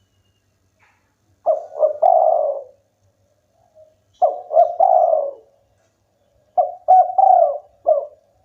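A spotted dove (tekukur) cooing: three phrases a couple of seconds apart, each a few short coos and a longer drawn-out one.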